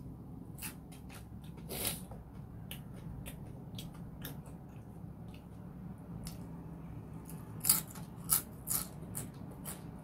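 Close-miked eating sounds: chewing with wet mouth clicks and lip smacks, scattered through, with three louder smacks near the end.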